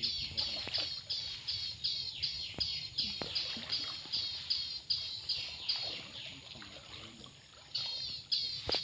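A high-pitched call repeated rapidly, about three or four falling notes a second; it breaks off about five and a half seconds in and starts again near the end. A faint low wash of water lies beneath it.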